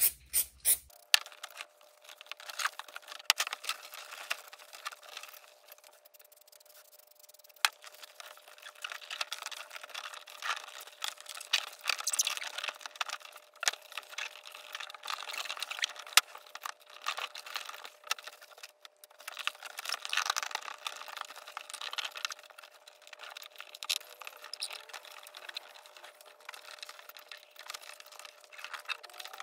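Upholstery fabric rustling and crinkling as hands lay it over a spray-glued door trim panel and smooth it down, with many small crackles and ticks.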